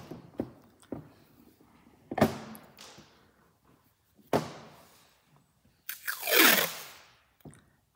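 Two sharp knocks on a tabletop as a wooden picture frame and a tape roll are handled, then brown paper framer's tape being pulled off its roll about six seconds in, a loud rip lasting about a second.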